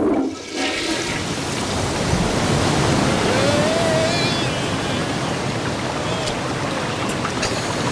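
A large rush of water, a cartoon sound effect of a torrent pouring out, starting suddenly and running on steadily.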